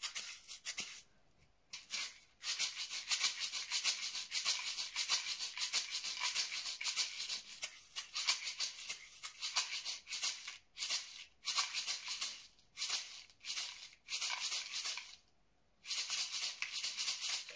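Homemade paper-covered tube maraca shaken by hand, giving a dry rattling hiss in quick rhythmic strokes. It breaks off briefly about a second in and again near the end, when two of the homemade shakers are shaken together.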